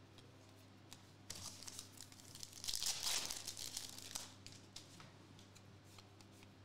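Glossy foil trading cards rustling and scraping against each other as they are slid and shuffled by hand, with a few light clicks. The rustle runs for about three seconds, loudest in the middle.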